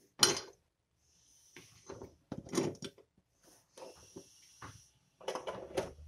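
Handling of souvenir fridge magnets: a sharp click just after the start as a resin fridge magnet is set against the metal surface, then scattered taps, scrapes and rustles of magnets being handled.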